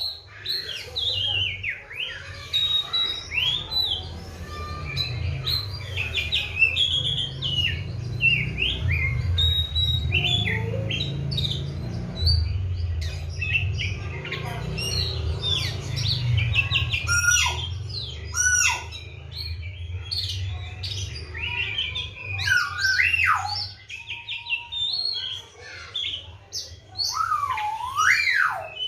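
Oriental magpie-robin in full song: a continuous, varied run of whistled phrases, sweeping slurs and short chirps. A low rumble sits underneath from about four seconds in to about the middle.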